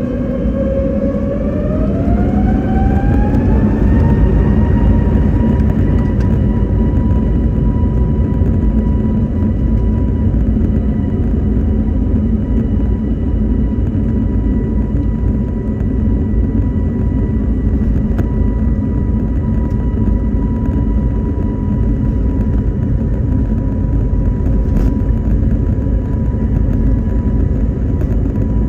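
Airbus A321neo's turbofan engines spooling up, heard from inside the cabin. A whine rises in pitch over the first few seconds and then holds steady over a heavy low rumble, as with engines set to takeoff thrust.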